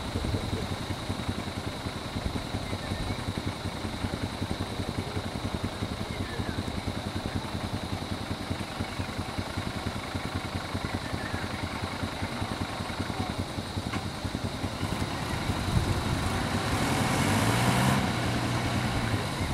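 Diesel engine of a stopped bus idling steadily with an even low pulsing, growing louder for a couple of seconds near the end.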